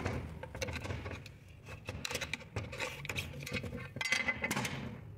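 Irregular scraping and clicking of hands working at an engine mount's rubber bushing, dislodging a small stone wedged in it.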